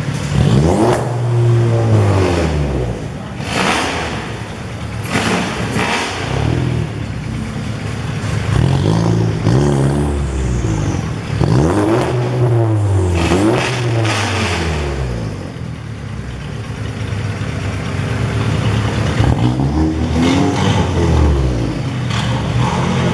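Several cars passing at speed one after another, each engine note falling in pitch as it goes by.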